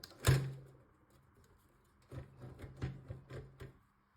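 Hand work on a desktop PC case: a sharp knock, then a quick run of small clicks and knocks about two seconds later.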